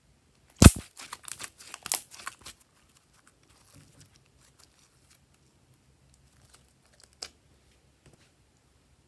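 Glossy slime being stretched and squeezed by hand, popping and crackling: one loud sharp pop about half a second in, then a quick run of crackling clicks for about two seconds, then faint squishing and one more click later on.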